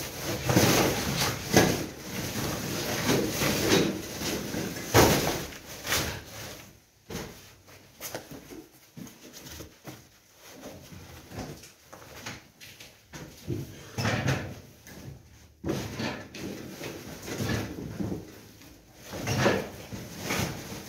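Demolition rubble being loaded into woven plastic sacks: the sacks rustle and broken debris clatters and scrapes in irregular bursts, busiest in the first six seconds and again in short spells near the end.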